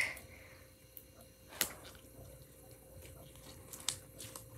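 Slime being stretched and squished between the hands: a faint wet squishing with a few sharp sticky pops and clicks, the loudest about one and a half seconds in and another near the end.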